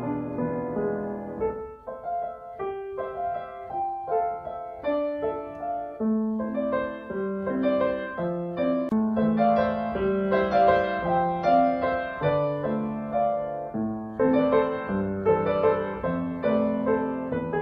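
Background piano music: a gentle melody of single sustained notes over a lower accompaniment.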